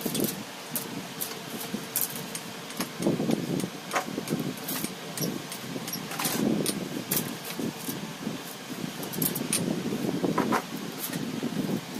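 Handling noises of a chainsaw being worked on: irregular small clicks and clinks of tools and parts, with rustling and scraping swelling up about three times.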